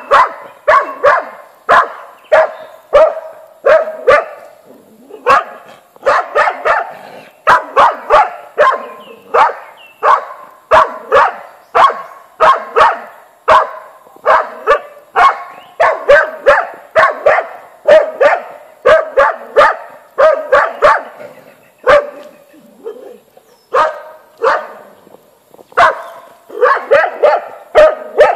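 A hunting dog barking steadily at wild boar, about two to three sharp barks a second, with a brief break about three-quarters of the way through. It is a boar dog baying, holding the boar at bay.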